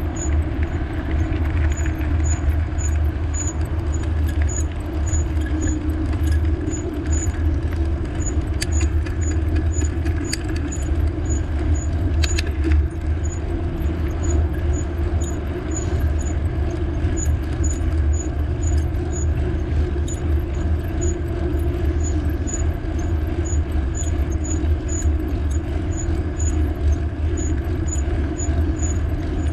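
Steady wind rumble and rolling road noise while riding a bicycle, with a light high tick repeating evenly about twice a second.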